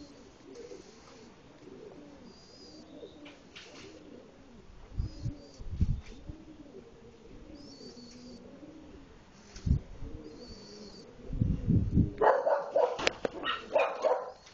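Domestic pigeon cooing over and over, each coo a short rise and fall. Near the end comes a louder, rougher burst lasting about two seconds.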